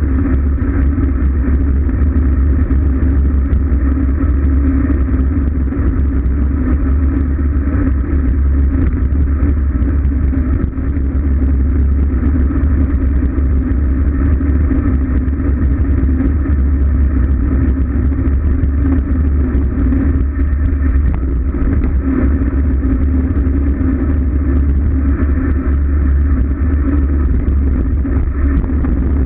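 Steady rush of wind buffeting a bike-mounted GoPro's microphone during a fast road-bike descent, heaviest in the deep low end, with the rolling noise of the bike on asphalt mixed in.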